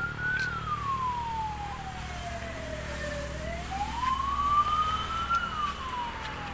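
Emergency vehicle siren in a slow wail, its pitch climbing and sinking twice, over a steady low hum.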